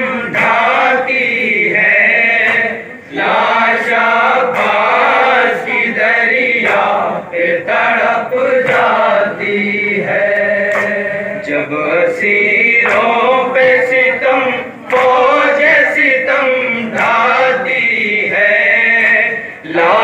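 Men's voices singing a noha, a Shia mourning lament in Urdu, in chorus, with long drawn-out sung phrases separated by short breaks.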